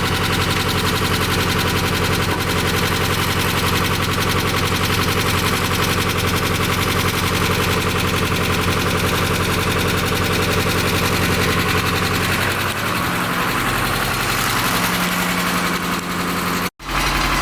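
Vehicle engine idling steadily with a fast, even firing rhythm; its note shifts about two-thirds of the way through. The sound cuts out abruptly for an instant near the end.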